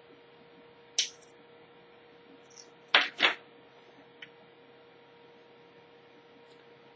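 Small folding nail clippers being handled and clicked: one sharp click about a second in, then two quick clicks about three seconds in, with a few fainter ticks. A faint steady hum runs underneath.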